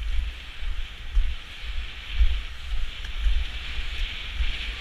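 Wind buffeting the microphone of a skater's moving action camera, a gusty low rumble that swells and drops every second or so, over the steady hiss of inline skate wheels rolling on asphalt.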